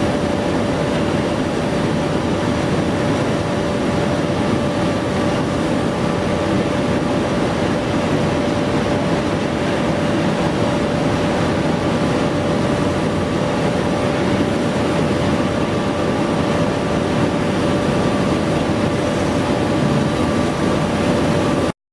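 Heavy industrial machinery running steadily: a dense, even noise with a constant whine, with no hammering or knocking.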